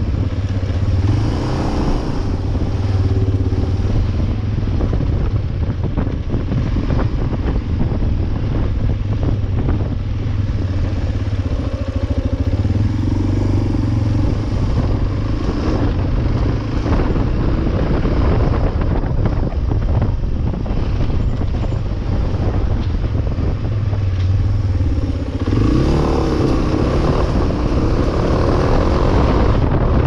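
Suzuki Djebel 250XC's single-cylinder engine running as the bike rides along at low speed. Near the end the engine note rises and gets louder as it speeds up.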